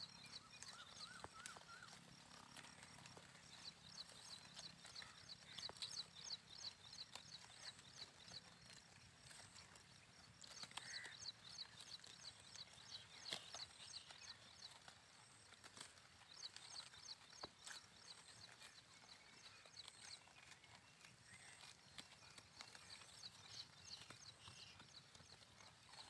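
Sheep grazing, heard as faint scattered clicks and tearing of grass being cropped. Over it come several runs of high, rapid chirping that start and stop.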